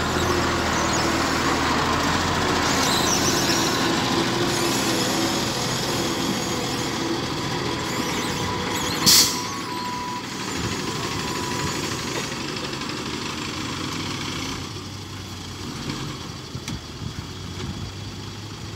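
Diesel engine of a loaded dump truck pulling away over dirt, its drone growing quieter as the truck moves off. About nine seconds in there is a brief, loud hiss.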